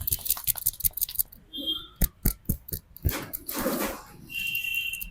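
Barber's hands slapping and tapping on a head during a head massage: a quick run of sharp slaps, then a few slower, heavier strikes. A short rushing noise follows, and a steady high-pitched tone starts near the end.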